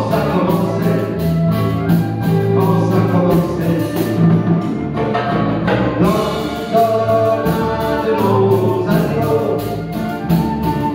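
Live acoustic band playing a song: strummed acoustic guitars and a flute carrying the melody. The strumming thins out for a couple of seconds midway.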